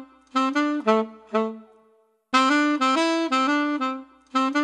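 Background music: a short melodic phrase on a single wind-like instrument that loops about every four seconds. Each pass is a run of held notes followed by three short notes that die away, with a brief gap before it starts again.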